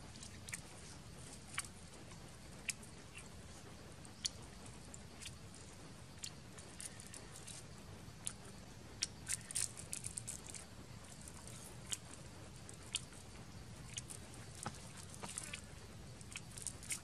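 Close-up eating sounds: a person biting into and chewing crisp spit-grilled water snake, with scattered crunches and smacks and a busier run of them about nine to ten seconds in.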